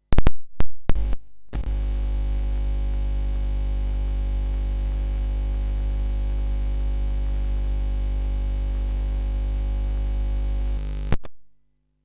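A few sharp pops and crackles, then a loud, steady electrical buzz with a thin high tone on top, held for about nine seconds before a last pop and a sudden cut-off: mains hum in the stream's sound feed.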